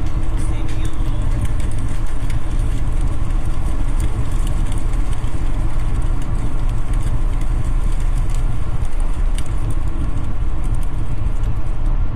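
A car driving at highway speed: steady engine and tyre noise, heaviest in the low end, without a break.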